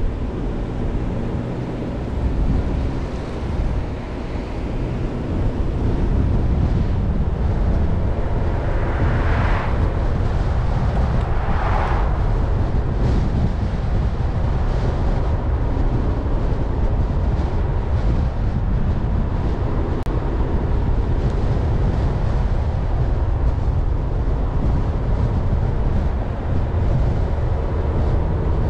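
A car driving along: steady low rumble of tyres and engine with wind noise over it, and two brief whooshes about nine and twelve seconds in.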